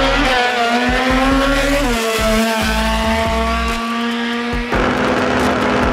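A drag-racing car's engine at full throttle on a run down the strip. Its pitch climbs, drops at a gear shift about two seconds in, then holds steady until it cuts off abruptly, as the driver lifts, a little before the end.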